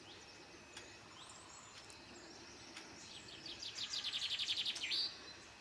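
A bird's rapid trill: a fast run of short high chirps, about a dozen a second, lasting around a second and a half past the middle and ending on a brief rising note, over faint scattered chirping.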